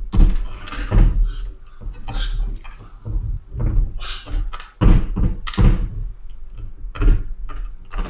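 Irregular knocks, clicks and rubbing of a Riddell SpeedFlex football helmet's hard plastic shell and visor being handled and pressed together as the visor is flexed into its mounts.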